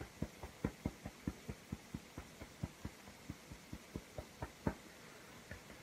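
Fingertips tapping on the under-arm point of the side of the chest, through a jacket, for EFT tapping. The taps are soft, even and about four or five a second, and they stop near the end.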